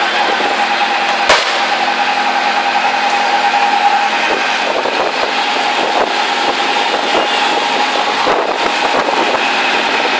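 An auto-rickshaw's small engine drones steadily at speed, heard from inside the open cabin with road and traffic noise around it. A single sharp crack about a second in is the loudest moment.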